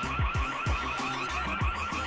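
Background music with a hip-hop style beat: deep kicks that drop in pitch, crisp hi-hat ticks and a steady warbling high tone over the top.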